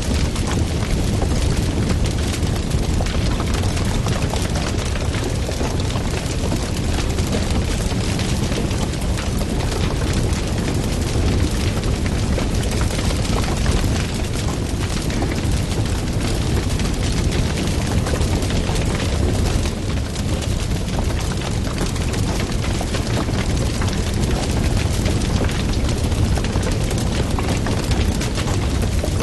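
Wood fire burning loudly, a dense steady crackling and popping over a deep low rumble.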